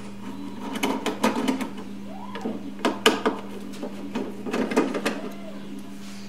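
Phillips screwdriver backing out the rear screws of a Gaggia Classic espresso machine's top lid: a string of small, irregular clicks and scrapes as the screws turn in the metal, over a steady low hum.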